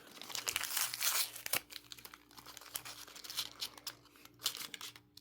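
Small plastic baggie being handled and torn open, crinkling and rustling in irregular bursts, busiest in the first second and a half and again near the end.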